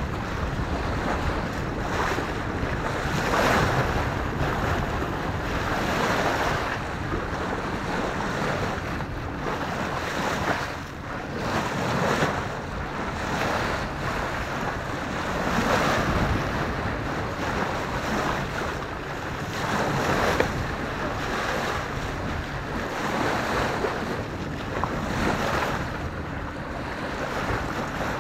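Water rushing and splashing along a sailboat's bow and hull as it sails under way, with wind buffeting the microphone. The wash swells and eases every couple of seconds.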